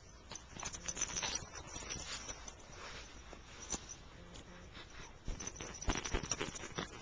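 Light pattering and scattered small clicks from a small pet moving about, with a few louder knocks near the end.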